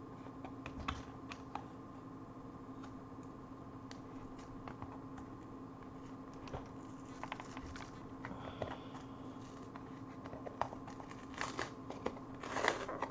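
Scattered light clicks and taps of small objects being handled, over a steady hum, with a short burst of louder rustling and clicking near the end.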